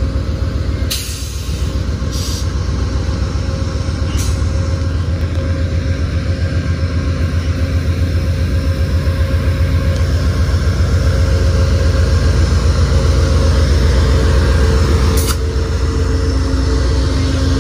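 Amtrak GE Genesis P42DC diesel locomotive pulling its train out of the station and passing close by: a deep, pulsing engine rumble that grows louder as it draws level. A few short bursts of hiss come over it.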